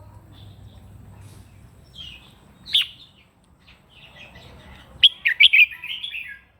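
Red-whiskered bulbul singing: a few short, separate notes, then about four seconds in a quick, loud run of warbled phrases that ends just before the close.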